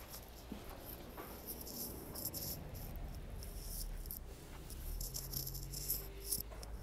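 Footsteps crunching on packed snow, an irregular series of short crackling crunches as someone walks around a parked motorcycle, with a faint low hum in the background.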